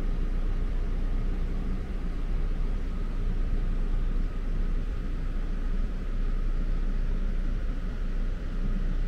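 Steady low rumble of a vehicle on the move: engine and road noise.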